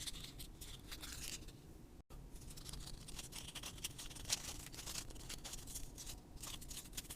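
Faint scratching, rubbing and crinkling of small fidget toys being handled close up, made of many small ticks, with a sudden break about two seconds in.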